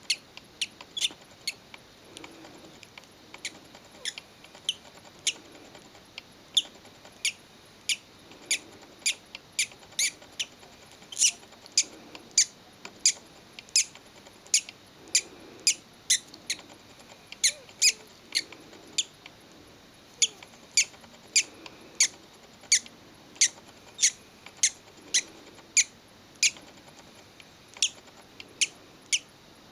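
Hatching budgerigar chick peeping: short, high-pitched cheeps repeated steadily, about one and a half a second.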